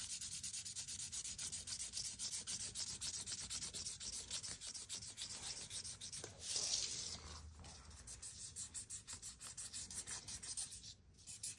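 A marker scrubbed quickly back and forth on a velvet colouring poster, a scratchy rubbing at about five or six strokes a second. It grows louder briefly about seven seconds in and drops away near the end.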